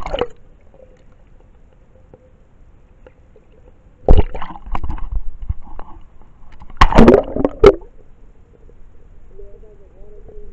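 Water splashing and sloshing in two short bursts, about four and seven seconds in, in knee-deep floodwater.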